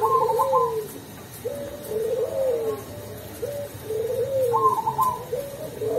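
Perkutut Cemani zebra dove cooing its song (anggungan): a series of repeated phrases of arched, gliding coos, with quick trilled higher notes opening the first phrase and returning about two-thirds of the way through.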